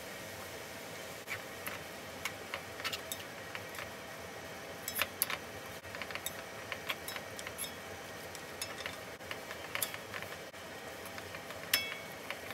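Wooden spatula and chopsticks tossing and stirring glass noodles and vegetables in a wok, with irregular clicks and taps of wood against the pan over a steady sizzle.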